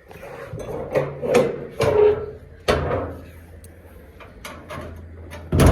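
A door being pushed shut: a series of scrapes and knocks with a short squeak about two seconds in, then a heavy bang near the end.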